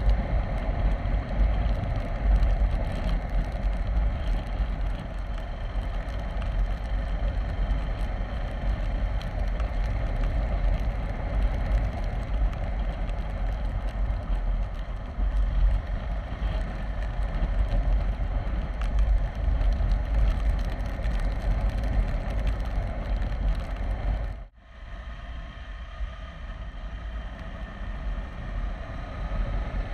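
Motorcycle ride sound: wind rushing over the microphone with the KTM 390 Adventure's single-cylinder engine running steadily at speed. About 24 seconds in the sound drops suddenly and stays quieter.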